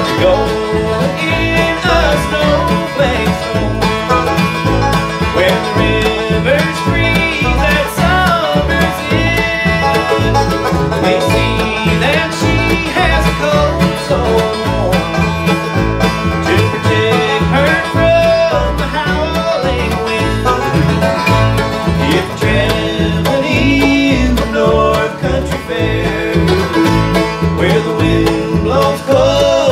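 Bluegrass band playing live: banjo, mandolin, acoustic guitar and lap-played resonator guitar over an upright bass keeping a steady beat.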